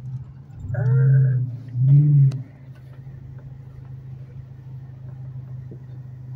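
Dodge Charger's engine and exhaust droning steadily inside the cabin while driving on a city street. Two short, louder sounds stand out about one and two seconds in.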